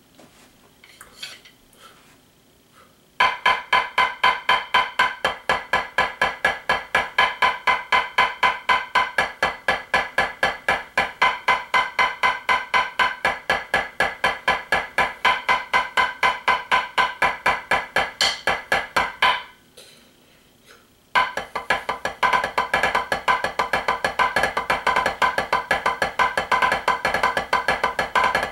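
Wooden drumsticks playing a drum practice pad in an even, steady stream of sharp strokes: the tripod diddle rudiment at 120 bpm. The strokes start about three seconds in, break off for a moment a little past the middle, then resume.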